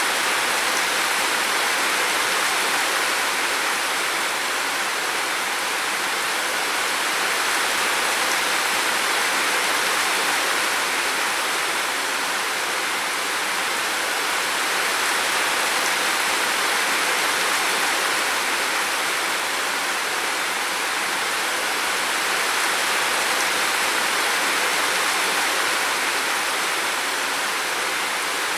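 Steady rushing water noise, swelling and easing slightly every several seconds.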